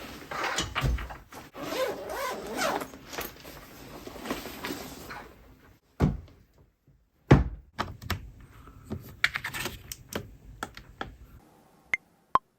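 A series of separate knocks and clicks with quiet gaps between them, following a few seconds of muffled noise.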